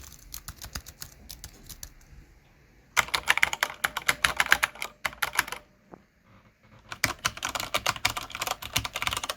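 Typing demonstration: first about two seconds of soft, muted key presses on a membrane keyboard, then two spells of much louder, rapid clacking typing on a mechanical keyboard.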